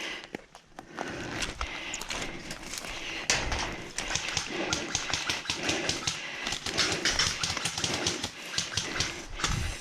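A player moving on foot: footsteps and gear rustling with many small clicks, and heavy breathing in a rough rhythm of a little under one breath a second.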